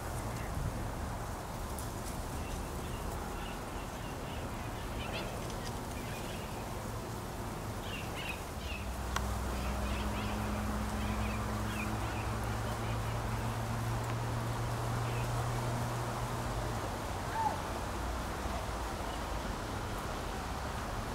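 Open-air ambience with faint, short, high bird chirps scattered through the first half. A steady low hum sets in about nine seconds in and fades out around seventeen seconds.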